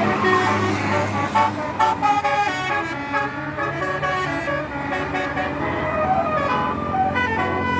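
Bus telolet horn, a basuri-type multi-tone air horn, playing a quick stepping tune of several notes at once.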